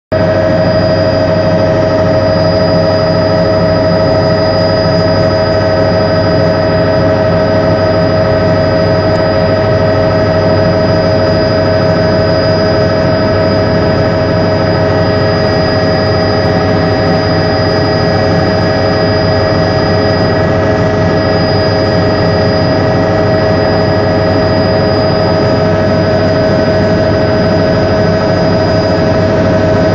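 Helicopter turbine engine and rotor heard from inside the cabin: a loud, steady drone with a high whine. It starts abruptly.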